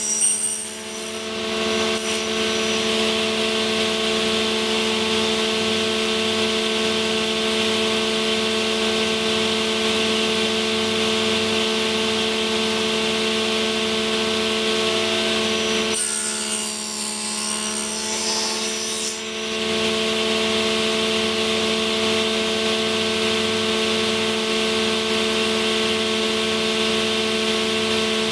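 Circular saw of a UKM300 woodworking machine running steadily with a homemade box-joint jig. A hissier cutting sound comes through at the very start and again for about three seconds from roughly 16 seconds in, as a pass is sawn into the wood.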